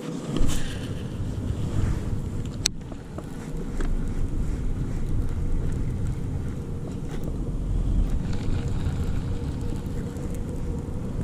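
Wind buffeting the camera microphone on an open boat, a dense low rumble with a faint steady hum beneath it. A single sharp click comes a little under three seconds in.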